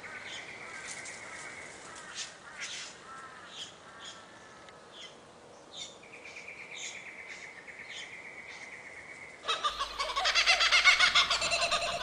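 Birds chirping and calling over a steady pulsed trill. About nine and a half seconds in, a much louder, dense burst of calls begins.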